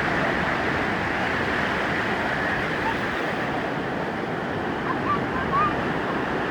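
Ocean surf breaking and washing on a beach, a steady rushing noise.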